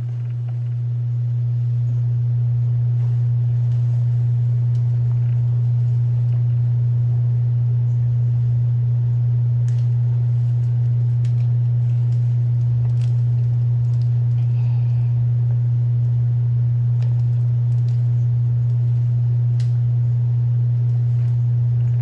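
A loud, steady low hum at a single pitch that fades in just at the start and then holds unchanged, with a few faint clicks.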